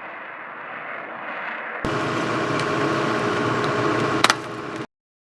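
Jet engine noise: a steady rush that grows slowly, then jumps louder about two seconds in with a steady whine running through it. A couple of sharp clicks come near the end, and the sound cuts off abruptly.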